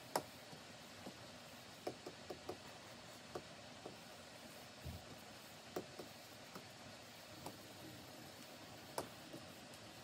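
Stylus nib tapping and clicking irregularly on a Wacom Cintiq 24 Pro's screen while painting, about a dozen light taps with the sharpest right at the start and about nine seconds in, over a faint steady hiss.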